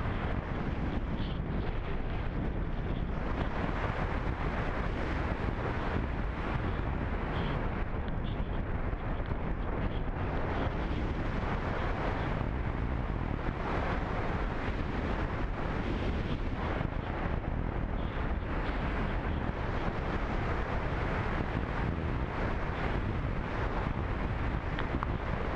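Steady rush of wind and airflow buffeting the microphone of a camera riding on an unpowered radio-control slope-soaring glider in flight.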